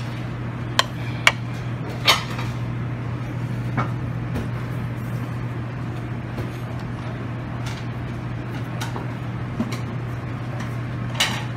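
Buffet restaurant room noise: a steady low hum with a few short, sharp clicks and clinks, several close together in the first two seconds and one more near the end.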